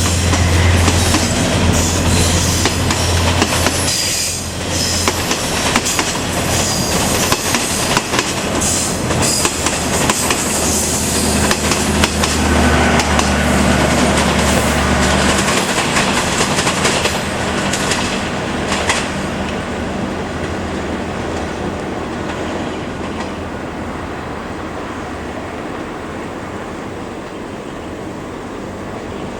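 A KTM passenger train hauled by a Class 26 diesel-electric locomotive moves along the track, with carriage wheels clacking over the rail joints and some wheel squeal. A deep engine drone runs through the first half and stops about halfway. After that the sound slowly fades.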